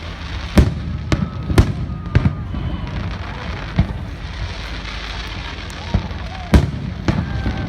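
Fireworks going off: a string of sharp bangs at irregular intervals, about eight in all, with a cluster in the first two and a half seconds and another near the end, over a steady background hiss.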